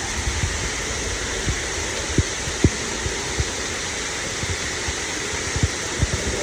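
Waterfall rushing steadily, with irregular short low thumps through the noise.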